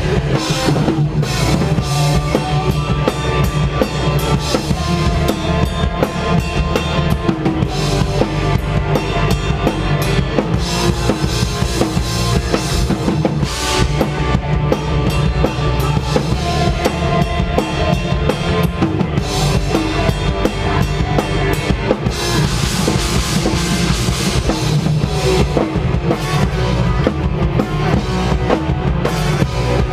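Hardcore band playing loud live, the full drum kit driving it with bass drum, snare and cymbals, the cymbal wash swelling about two-thirds of the way through.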